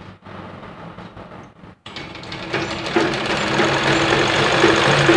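A domestic sewing machine starts up about two seconds in and runs steadily, stitching a seam through the fabric.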